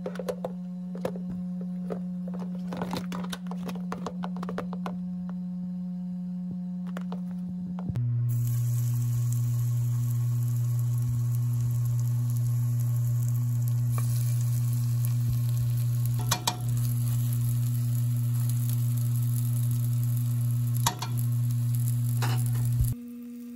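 Starch-coated tofu cubes shaken in a plastic container, with a run of light rattling knocks. Then, from about eight seconds in, the tofu frying in a pan of oil with a steady sizzle and a couple of sharp clicks. A steady low tone runs underneath, changing pitch when the frying starts.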